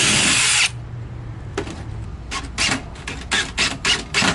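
Power drill driving screws into plywood cabinet panels: it runs steadily for under a second, stops, then runs again in a string of short trigger bursts, several a second.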